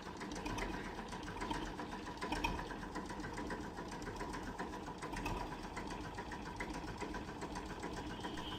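A machine running with a rapid, even ticking over a steady hum.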